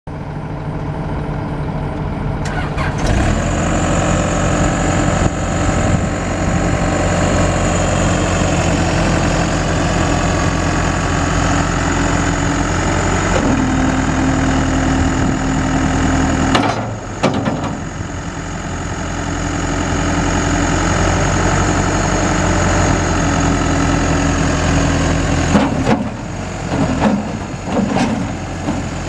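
Case 580 Super M backhoe's diesel engine running steadily. Its note steps up about three seconds in, then shifts pitch and load several times, with brief dips around the middle and near the end.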